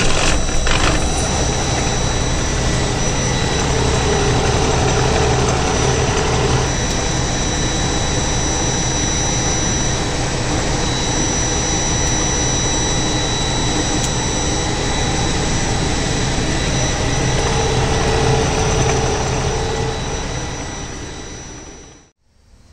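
Heavy truck's diesel engine running steadily just after starting, heard from inside the cab, building air pressure so the new transmission air module can be checked for leaks. A thin steady high whine sits over the rumble, and the sound fades out near the end.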